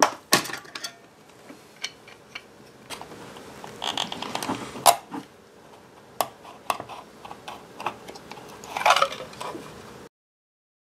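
Plastic battery-pack shell of a knock-off DeWALT 20V MAX battery being pried apart and handled, giving irregular sharp clicks and knocks. Near the end comes a scraping clatter as the lithium-ion cell pack is pulled out of the shell.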